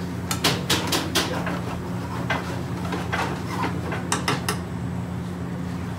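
Metal spoon and tongs clinking and scraping against a metal frying pan as a piece of chicken is turned in its sauce: a quick run of sharp clicks in the first second, then scattered single clicks, over a steady low hum.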